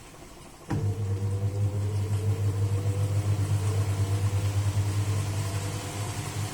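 Sanyo pulsator washing machine's motor switching on for the spin cycle with a click about a second in, then a strong low hum and a whine that rises slowly in pitch as the tub speeds up.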